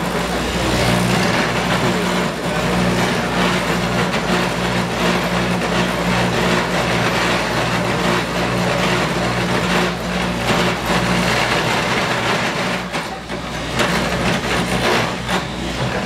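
Clog-copying machine running, its cutter carving a wooden clog blank from a model clog with a loud, continuous grinding over a steady motor hum. The hum drops away about twelve seconds in, and a few knocks follow.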